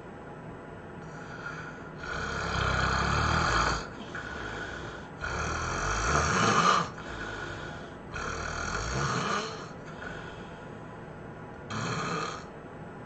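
A sleeping person snoring: four long snores about three seconds apart, the last one shorter.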